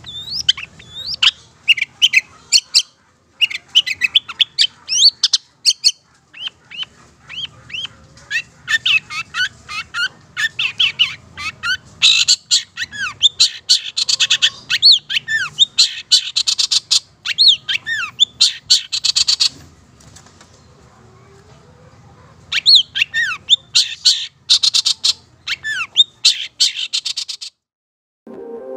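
Caged long-tailed shrike (cendet) singing a fast run of sharp chirps, quick whistles and sweeping notes. The song is densest and loudest in the middle, breaks off twice for a few seconds, and stops shortly before the end.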